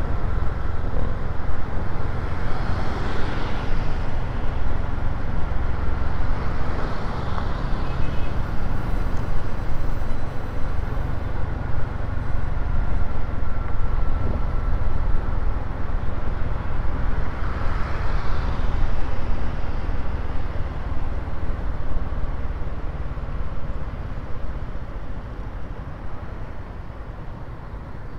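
Riding a motor scooter in city traffic: wind rumbling on the microphone over engine and road noise, with a few swells of higher hiss. It grows quieter over the last several seconds.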